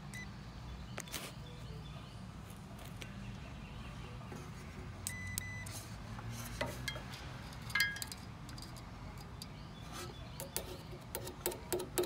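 Meter test leads being handled and touched to a compressor's terminals: scattered small clicks and taps, a short electronic beep about five seconds in, and a sharper click near eight seconds, over a low steady hum. This is a ground check on the compressor windings, which finds no short to ground.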